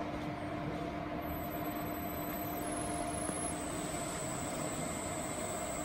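RX-10L lab vacuum homogenizer mixer running with a steady mechanical hum and drone while its electric lifting system raises the lid and scraper agitator out of the main vessel. A faint high whine shifts in pitch a few times.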